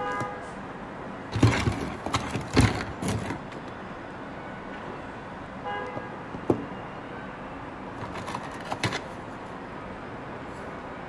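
Hard plastic toys handled and knocked together, giving clusters of sharp clicks and clacks, with a short tooting tone at the start and another about halfway through.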